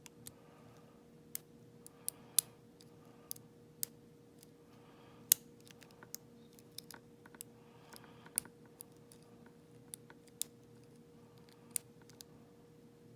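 Lock pick and tension wrench working the pins of a Schlage lock's American pin-tumbler core: sharp, irregular metallic clicks, about a dozen and a half, spaced unevenly as the pins are probed and set.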